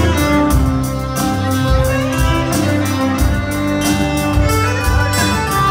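Folk-punk band playing live, with the fiddle carrying the melody over strummed acoustic guitar, electric guitar and bass and a steady drum beat; no singing.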